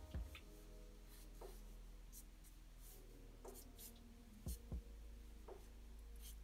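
Black marker scratching on paper in short, quick strokes, sketching fur lines, faint and irregular, over a faint steady low hum.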